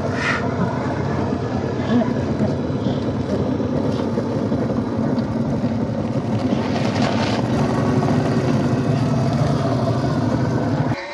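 Electric motor and gear drive of a Traxxas TRX-4 Range Rover Classic scale RC crawler whirring steadily as it crawls over dirt, with a sudden change in the sound near the end.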